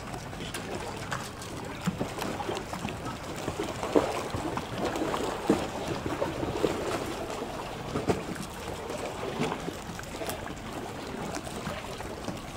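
Lake water lapping and splashing close by: a steady wash with irregular small slaps, the sharpest about four seconds in.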